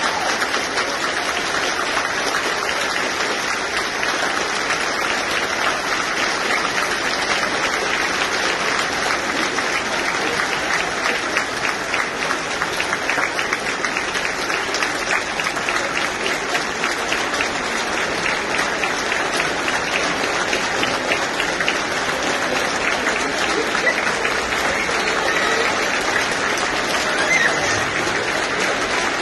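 Thousands of people in a stadium crowd applauding at length, a dense, steady clapping that never lets up.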